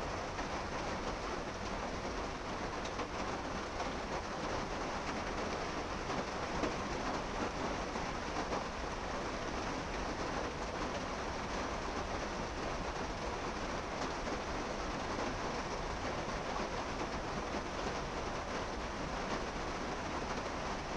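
Steady, even rushing outdoor background noise with a low rumble underneath and no distinct events.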